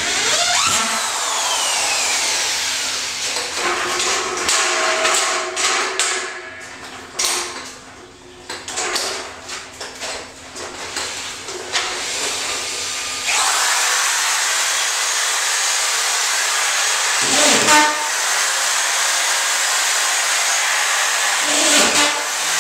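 Handheld power tool working on sheetrock. A falling whine early on as its motor winds down, with clatter in between; from about halfway a steady, long run with two brief breaks.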